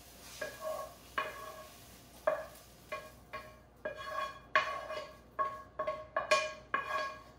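Wooden spoon and frying pan clanking as cooked onion, mushroom and spinach are scraped and knocked out of the pan into a stainless steel mixing bowl. A string of sharp knocks, each ringing briefly with a metallic tone, comes faster in the second half.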